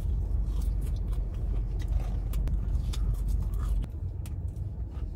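Steady low rumble inside a car cabin, easing slightly about four seconds in, with faint clicks and scrapes of a plastic spoon as ice cream is eaten.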